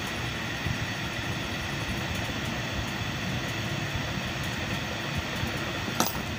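Steady mechanical background noise with no clear rhythm, and a single sharp click about six seconds in.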